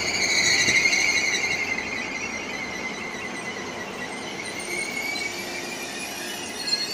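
High-pitched brake squeal of a vehicle pulling in to stop, wavering on several tones at once. It is loudest in the first second and a half, then fades, with a short sharper squeal again near the end.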